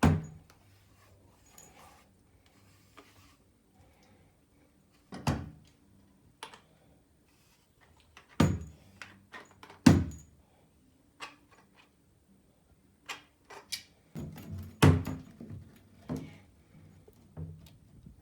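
Scattered knocks and clicks, a dozen or so at uneven gaps, from a shower hose and its threaded end fittings being handled and screwed onto a handheld shower head and a mixer tap.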